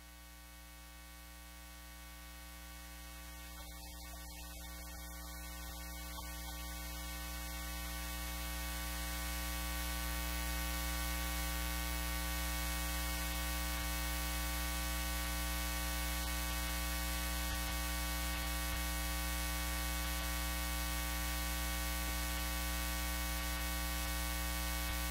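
Steady electrical mains hum with a stack of buzzing overtones, swelling over the first ten seconds and then holding level.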